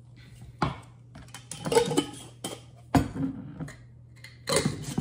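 Kitchen clatter of dishes and utensils being handled: a string of knocks and clinks, some with a brief ring, the sharpest about three seconds in.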